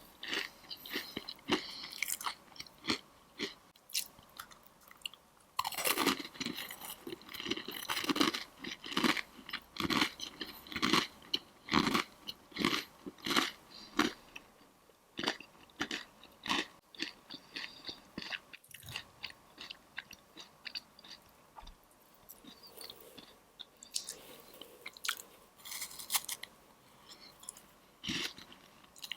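Close-miked chewing and crunching of crisp Chinese pastries, with many sharp crackly crunches coming in clusters and quieter chewing between them.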